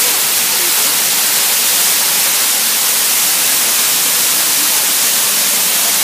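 Waterfall pouring down a rock face into a pool: a loud, steady rush of falling water.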